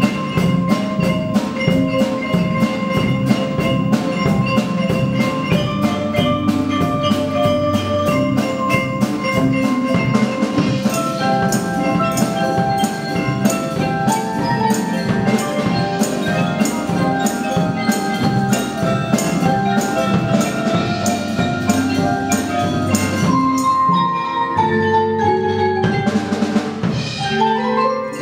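School percussion ensemble playing: marimbas and other mallet percussion over fast, steady drum strokes. Near the end it thins to a few held notes that slide down and then back up in pitch.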